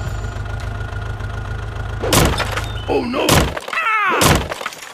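Tractor engine running with a steady low drone that stops about three and a half seconds in. Loud thunks come about two, three and four seconds in, with sliding pitched tones between the last two.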